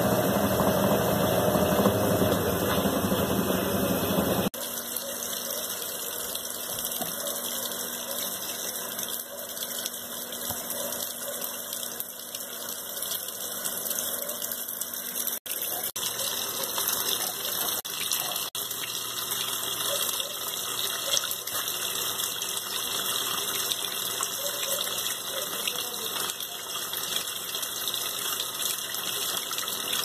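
Consul Maré Super 10 kg washing machine: its motor runs for the first few seconds and then cuts off abruptly. A steady rush of water inside the machine follows, with a couple of faint clicks partway through.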